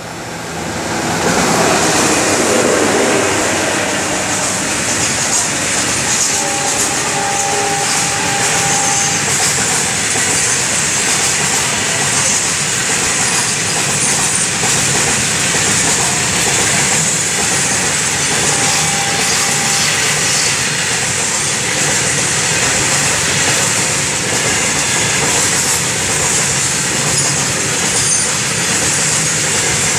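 Twin WDG-3A diesel locomotives running past close by, then a long rake of BCNA covered freight wagons rolling past with steady wheel-on-rail noise and clatter over the rail joints. Brief faint wheel squeals come twice.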